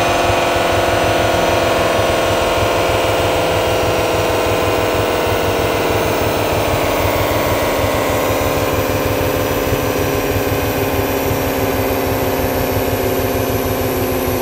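Honda VTX 1800C's 1.8-litre V-twin running on a motorcycle dynamometer, the rear wheel spinning the roller. Its pitch sinks slowly and the sound eases a little toward the end.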